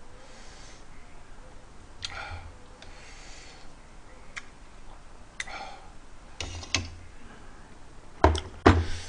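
A metal ladle clinks against a small bowl and a metal pot as stew and noodles are ladled out: scattered light clicks, then louder knocks near the end as the ladle and bowl are set down.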